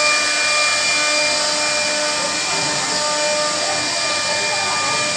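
CNC router spindle running with a steady high whine over a hiss as its bit carves into a wooden door panel.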